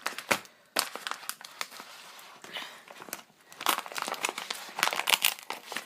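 Plastic wrapping on a pack of trading cards crinkling as it is handled and opened, with irregular sharp crackles.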